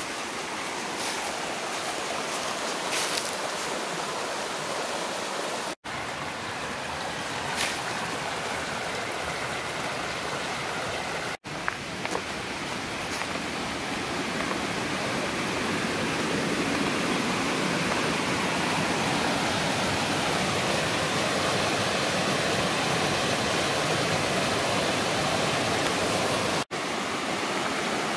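Mountain creek rushing over rocks: a steady whitewater noise that grows louder partway through. It cuts out briefly a few times where the recording is edited.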